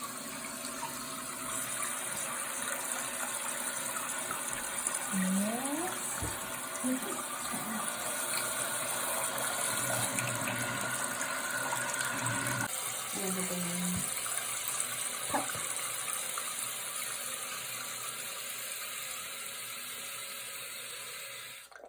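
Toilet tank refilling through its fill valve after the water supply is turned back on: a steady hiss of rushing water that cuts off abruptly near the end.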